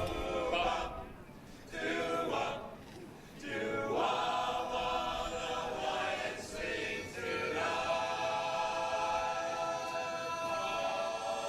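A cappella choir singing in harmony, with short breaks between phrases in the first few seconds, then a long held chord from about eight seconds in.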